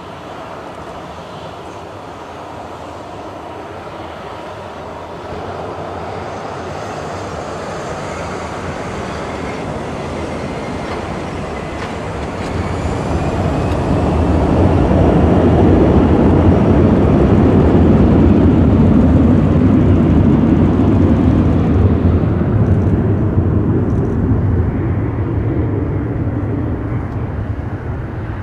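Boeing 737-400 jet engines at takeoff thrust, a rumble that swells as the jet passes, at its loudest for several seconds in the middle, then fades away, with a faint rising whine before the peak.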